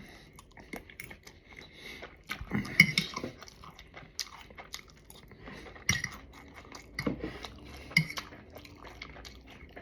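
A person chewing food close to the microphone, with scattered sharp clicks throughout and a few louder ones about three, six, seven and eight seconds in.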